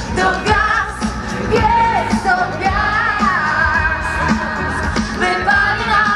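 A group of singers and a band performing a Polish song through the stage PA, with a large crowd singing along.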